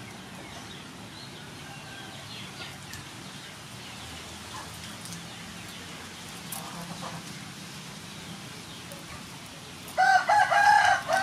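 A rooster crows loudly near the end, one long call that bends up and down in pitch. Before it there is a low steady background with a few faint short calls.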